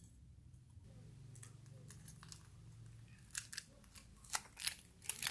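Sharp plastic clicks and snaps from a hollow plastic toy ball being handled in the fingers, starting about three seconds in and loudest near the end.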